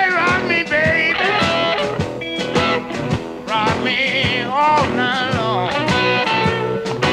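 Electric blues recording: electric guitar with wavering, bending notes over a steady drum beat.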